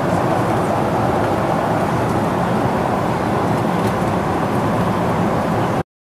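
Steady cabin noise of a Boeing 777-300ER in flight, the even rush of airflow and its GE90 jet engines, cutting off suddenly near the end.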